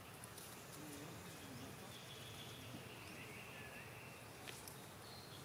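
Faint outdoor ambience: a low steady hiss with thin, drawn-out high calls of distant wildlife and a few soft clicks.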